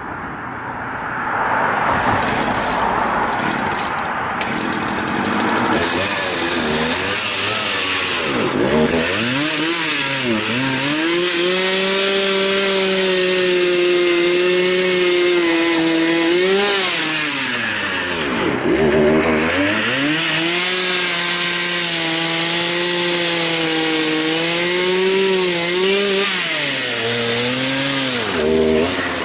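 Two-stroke chainsaw engine running, rough and unsteady for the first few seconds, then holding a steady pitch that twice drops sharply and picks back up, with a shorter dip near the end. The owner says its high and low idle still need adjusting.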